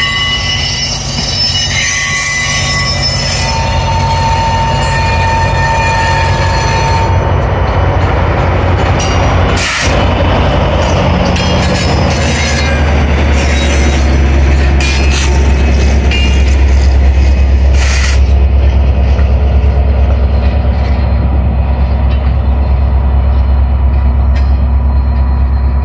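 Commuter train of bilevel coaches rolling by, with high squealing wheel tones for the first several seconds. About halfway through, its EMD F59PHI diesel locomotive, pushing at the rear, passes close and its engine sets up a loud deep steady drone that carries on as the train moves away. There are sharp knocks about ten seconds in and again near eighteen seconds.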